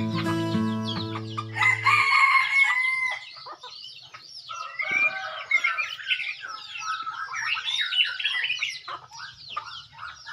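A rooster crows once, one long call about two seconds in. Dense chirping birdsong follows through the rest. Background music plays at the start and stops about two seconds in.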